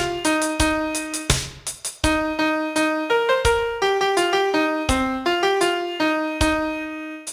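Piano playing a song melody as separate struck notes over chords, then cutting off abruptly near the end.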